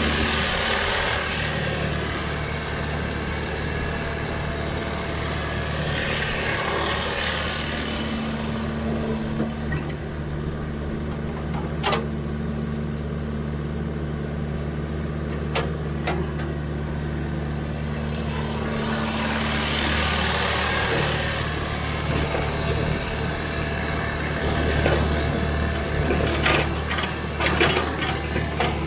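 Sany excavator's diesel engine running under load while digging, with a steady low hum that swells louder a few times as the hydraulics work. Two sharp clicks midway and a run of clanks near the end.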